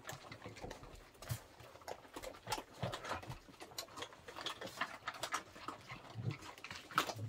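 Several dogs eating dry kibble from plastic bowls: faint, irregular small crunches and clicks of food and bowls.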